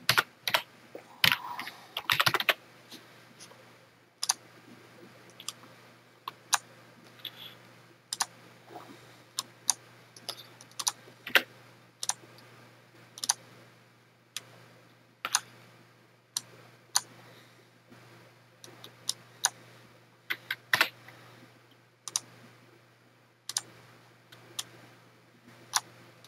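Computer keyboard keystrokes and mouse clicks: a quick run of typing at the start, then scattered single and paired clicks every second or two. A faint steady low hum runs underneath.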